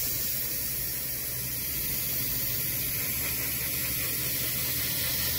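Airbrush spraying black primer, an even steady hiss of air and paint, with a faint low hum underneath.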